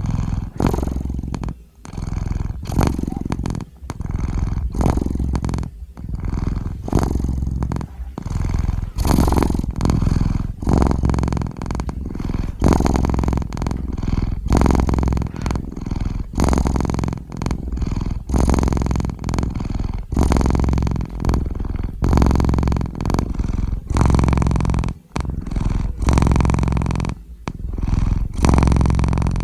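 Domestic cat purring close to the microphone, steady and loud, swelling and dipping with each breath about every two seconds.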